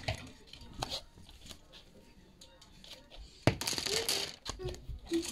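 Clothes and plastic hangers being handled: scattered light knocks, then a sharp clack about three and a half seconds in followed by about a second of rustling fabric.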